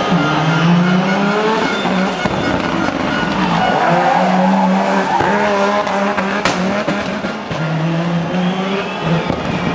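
Audi Sport Quattro S1 E2 rally car's turbocharged five-cylinder engine revving hard, its pitch rising and falling through gear changes. A single sharp crack about six and a half seconds in.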